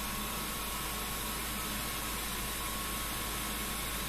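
ProtoTRAK CNC bed mill running under program, its end mill feeding around an arc cut in 1/4-inch aluminum plate: a steady machine noise with a thin, even whine through it.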